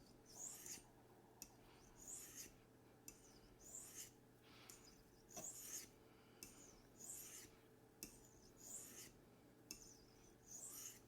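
A D2 steel knife blade being drawn across a gray ceramic sharpening stone in a series of faint scraping strokes, about one every one and a half seconds, as the edge is honed at 15 degrees with an angle guide.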